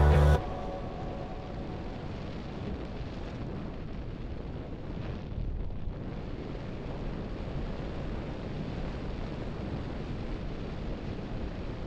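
Background music cuts off just after the start. Then comes a steady low rumble of wind buffeting a helmet-mounted camera's microphone, together with the mountain bike's tyres running over a dirt and gravel trail at about 40 km/h.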